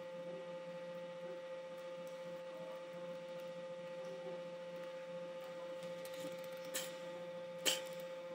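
Steady electrical hum with a whining tone, and two keyboard keystrokes near the end, the second louder.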